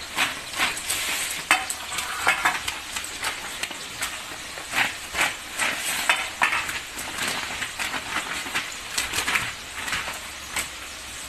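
Homemade French fries being tossed with spices by hand on a sheet of paper: irregular rustling of the paper and crisp scraping of the fries against it.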